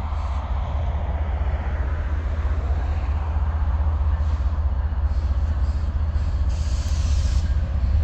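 Union Pacific intermodal freight train's well cars rolling past: steady low rumble and rail noise from the wheels, with a brief hiss near the end.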